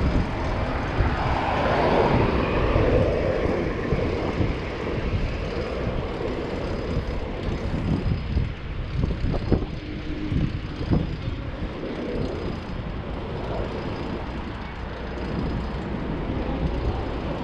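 City street traffic heard from a moving bicycle, a vehicle passing about two seconds in, over a steady low rumble.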